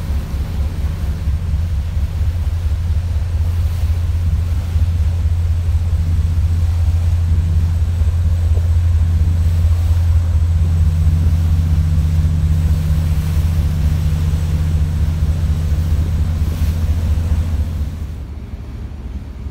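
Passenger ferry's engines droning steadily on the harbour crossing, a deep even hum under a light rush of wind and water; the drone drops away near the end.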